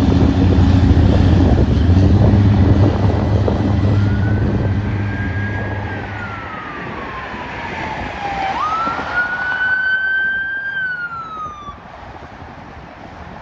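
A deep steady rumble for the first half, then an emergency vehicle siren wailing: it rises, sweeps slowly down, jumps back up, holds and falls away about twelve seconds in. The siren is on a fire department pickup truck running with lights.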